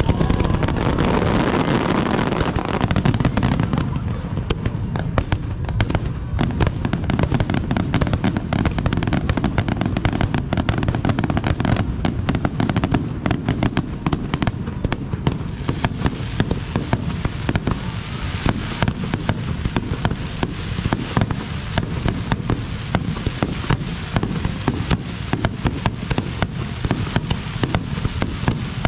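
Aerial fireworks display: a dense, continuous barrage of booming bursts and crackling reports, loudest in the first few seconds.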